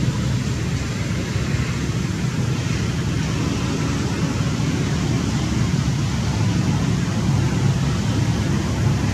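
Steady outdoor background noise: a low rumble under an even hiss, with no distinct calls or knocks.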